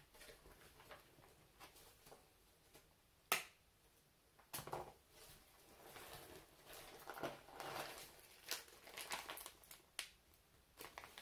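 Plastic bag and food packets rustling and crinkling as groceries are lifted out and handled, with one sharp click about three seconds in.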